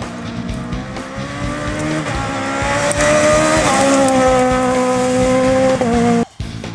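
Rally car engine at high revs, accelerating hard on a gravel stage, rising in pitch and getting louder as the car comes past, with a shift in pitch partway through. It cuts off suddenly near the end.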